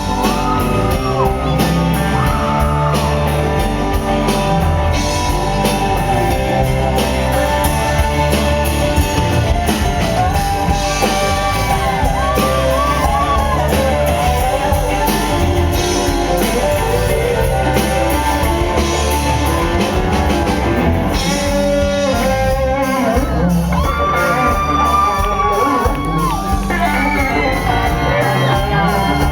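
Live country-rock band playing an instrumental break: drums, bass and guitars with a lead line that bends and slides in pitch, loud and steady, with some shouts over it.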